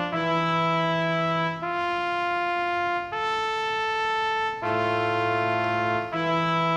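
Slow brass music: sustained chords held and changed about every second and a half.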